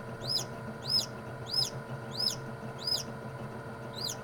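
Newly hatched chicken chick peeping: short, high, down-sliding peeps, about one every two-thirds of a second.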